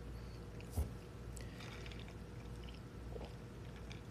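Faint sipping of an iced drink through a plastic straw, with a light knock just under a second in.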